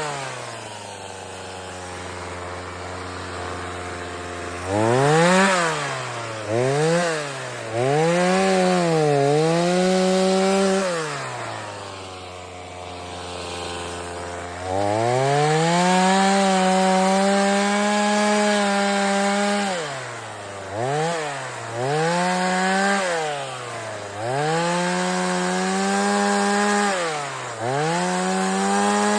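Two-stroke chainsaw cutting wood: it idles low, then is throttled up in a string of quick revs and long high-speed runs, dropping back to idle once midway before running at full speed again.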